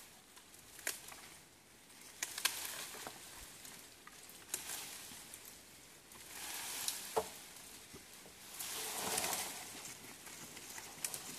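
Dry brush and leaves rustling and crackling, with scattered sharp snaps, as they are handled or trodden; two longer swells of rustling come about six and nine seconds in.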